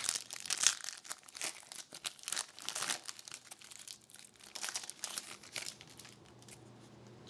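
Crinkling of a hockey card pack wrapper being opened and crumpled, with the cards handled, in dense irregular crackles that thin out and grow quieter over the last few seconds.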